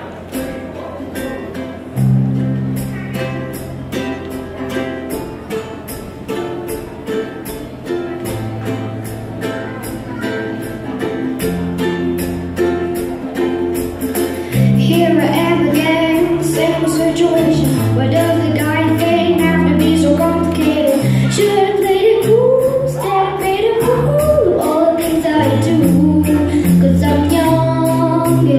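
A song played with a steady beat, the bass line coming in about two seconds in. A female voice starts singing about halfway through, and the music gets louder there.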